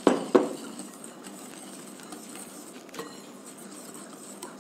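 Two sharp knocks against a glass mixing bowl at the very start, a third of a second apart. After them comes faint, soft stirring as a wire whisk works dry flour and cocoa into the oily cake batter.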